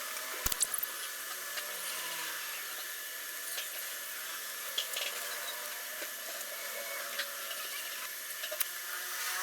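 Oxy-acetylene torch flame hissing steadily while welding a sheet-metal patch onto a rusted motorcycle muffler, with a few small pops and clicks.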